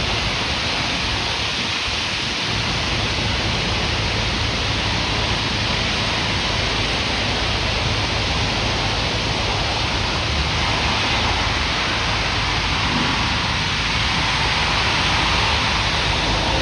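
Loud, steady hiss of sandblasting close by, with a low rumble beneath it.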